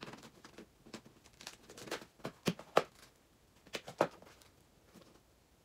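Cardboard shipping box being opened by hand: a string of short tearing and rustling sounds from the box and its contents, the loudest about two and a half and four seconds in.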